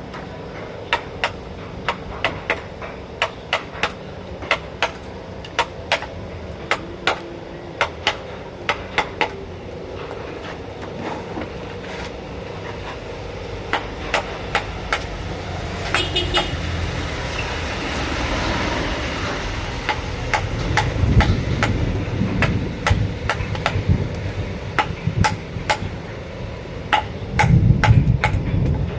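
Hammering in woodwork: irregular sharp knocks, about one or two a second, over a faint steady hum. About two-thirds of the way through they give way to denser, heavier knocking.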